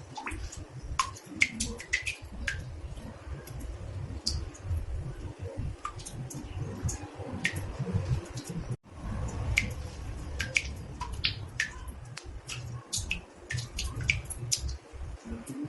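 Water drops falling irregularly into a bathtub, each a short plink in a small echoing room, over a low steady rumble. The sound cuts out for an instant a little past halfway.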